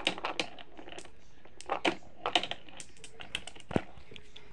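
Irregular light clicks and taps of hard plastic toy parts, a few at a time with short gaps and one sharper knock near the end.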